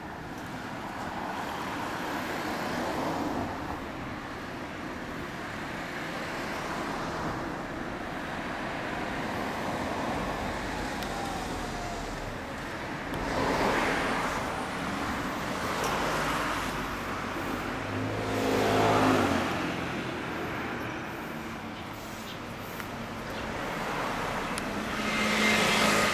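Road traffic passing on a street, several vehicles going by one after another. The biggest swells come about halfway through and again near the end.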